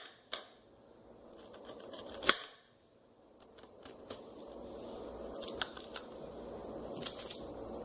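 Kitchen knife slicing an onion into thin rings on a cutting board: scattered sharp clicks as the blade strikes the board, the loudest about two seconds in.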